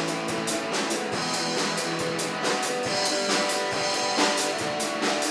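Live rock band playing a song's instrumental intro: guitar over a drum kit keeping a steady beat.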